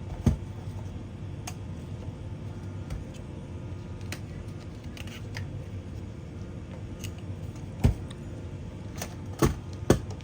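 Scattered light clicks and a few sharp knocks of hard parts and tools being handled, one knock just after the start and three near the end, over a steady low hum.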